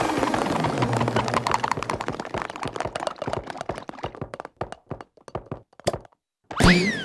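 Cartoon sound effect of a shower of small plastic balls landing: a dense run of rapid little taps and clicks that thins to a few scattered ones, then stops briefly. Near the end comes a short pitched cartoon-character vocal cry.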